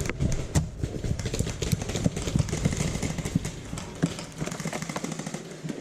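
Irregular sharp clicks and knocks over a rustling haze, typical of a player moving with gear on an airsoft field.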